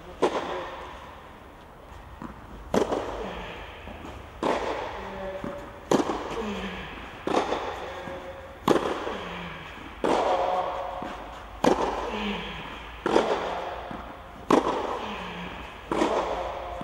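Tennis ball struck by rackets in a baseline rally, a sharp hit about every second and a half, each one ringing with echo in the covered hall.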